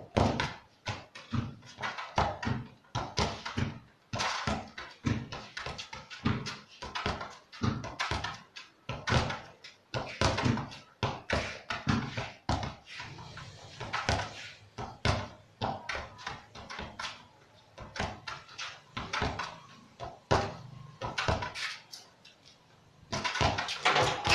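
A football kicked with the inside of the foot against a wall and rebounding, again and again: a run of sharp thuds, a couple a second, from the kicks and the ball striking the wall.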